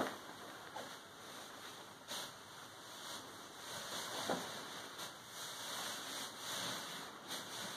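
Soft rustling and shuffling of a toddler clambering over fabric sofa cushions, with a few short, sharper sounds: one at the very start, one just under a second in, and one a little past four seconds in.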